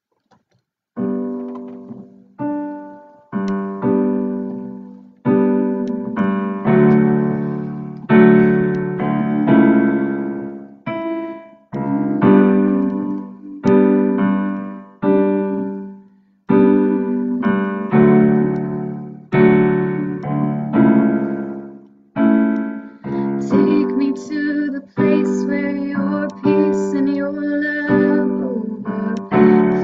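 Piano chords played on a keyboard, starting about a second in: one struck chord about every second, each left to ring and fade before the next. Higher notes join in over the last few seconds.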